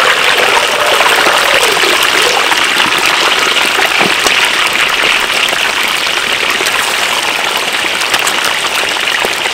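Whole raw chickens deep-frying in hot oil in a steel wok, the oil sizzling and crackling steadily.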